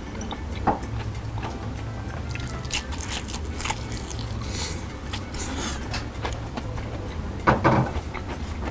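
Crisp bites into deep-fried breaded shrimp, followed by chewing. A few sharp crunches come midway, and the loudest crunches come near the end.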